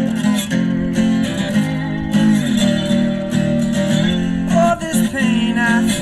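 Weissenborn lap slide guitar being played with a slide: plucked notes ringing over sustained low notes, with a few higher notes gliding up and down near the end.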